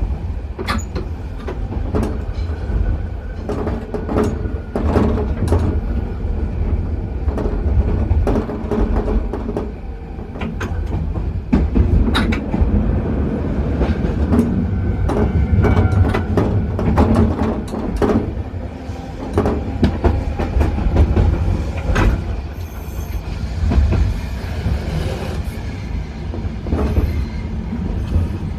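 Keifuku Randen electric railcar running, heard from inside the car: a steady low rumble of motors and wheels on the rails, broken by frequent sharp clicks and knocks as the wheels pass over rail joints and points.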